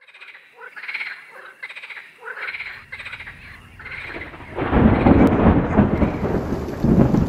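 Swamp frogs calling, a run of repeated pulsed croaks roughly every 0.7 s. About four and a half seconds in, a deep rumble of thunder with the rush of heavy rain comes in and drowns them out, the loudest part.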